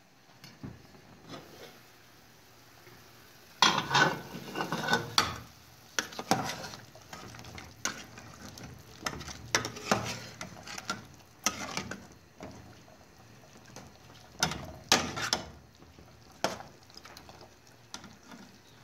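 Metal ladle clinking and scraping against an aluminium cooking pot while stirring through broth and boiled rabbit meat, in irregular knocks, with louder clanks about four seconds in and again around fifteen seconds.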